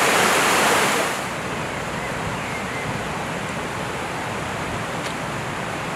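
Floodwater in a swollen stream rushing down its concrete-walled channel: a steady rush of water that becomes quieter and duller about a second in.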